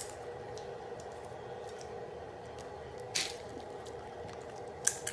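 Small dog chewing sunflower seeds, with a few sharp cracks as the shells break: one at the start, one about three seconds in and one near the end. A steady hum runs underneath.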